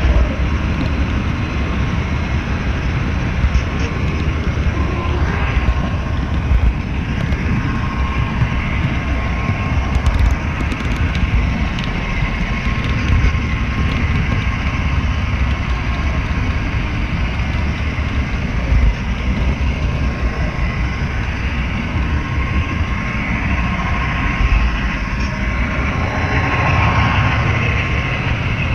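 HO-scale model train rolling along the track, heard from a camera riding on its flatcar: a steady low rumble of wheels and track vibration with a faint steady whine and occasional short clicks.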